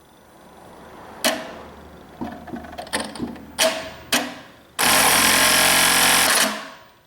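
Brother KE-430F electronic bartacking machine: several sharp clicks and knocks, then about a second and a half of fast continuous stitching that dies away near the end.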